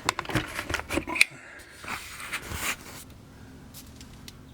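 Quick, irregular metallic clicks and light rattling in the first second or so, then a few scattered scrapes and knocks: tools and hardware being handled at the wheel hub during a wheel stud replacement.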